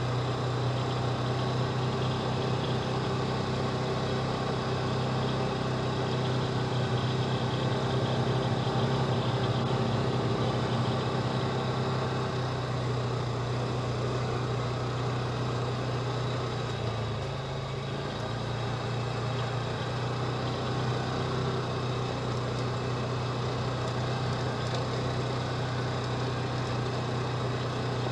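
Polaris Ranger 4x4 utility vehicle's engine running steadily while driving, with a continuous hum and noise from the moving vehicle. Past the middle the engine note and loudness dip briefly for about a second, then return.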